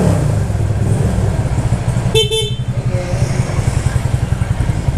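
A Honda Airblade 150 scooter's bored-up single-cylinder engine runs steadily through an aftermarket Yoshimura Alpha exhaust while riding up a climb, with a fast, even exhaust pulse. A vehicle horn beeps briefly about two seconds in.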